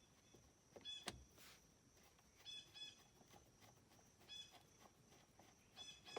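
Near silence, broken by a few faint clicks and several faint short high chirps that mostly come in pairs.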